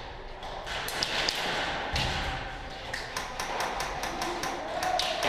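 Airsoft gunfire: irregular sharp snaps and clicks, several a second and more frequent in the second half, in a large concrete basement.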